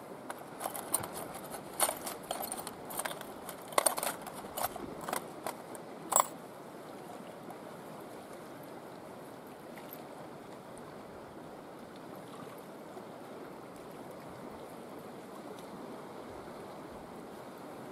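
Steady rush of a river, with a scatter of small metallic clicks and rattles over the first six seconds as a lure is picked out of a small metal tackle tin, the sharpest click a little after six seconds.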